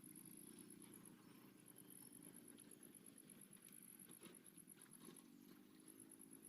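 Faint, continuous high-pitched insect chirring, pulsing rapidly, over a low hum and a few soft knocks.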